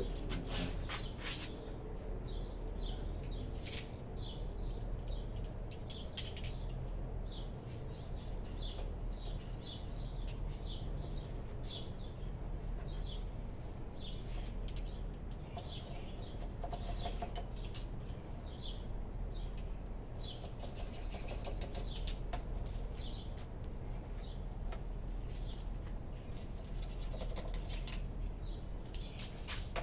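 Small birds chirping over and over, short quick falling chirps, over a steady low hum, with a few light clicks now and then.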